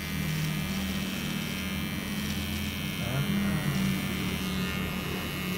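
Kemei electric hair trimmer buzzing steadily as it cuts a sideburn, its hum wavering slightly in pitch as the blade moves through the hair.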